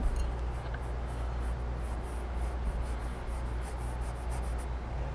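Paintbrush rubbing across painted canvas in quick repeated strokes, about three or four a second, that stop shortly before the end, over a steady low hum.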